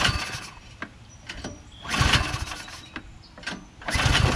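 Small gas engine of a single-stage snowblower being pull-started: a few recoil pulls about every one and a half to two seconds, then the engine catches near the end and keeps running.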